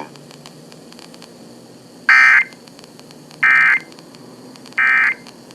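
Emergency Alert System End-of-Message data bursts heard over FM radio: three short, identical digital bursts, each under half a second and about a second and a half apart, signalling the end of the alert message, over a faint steady background noise.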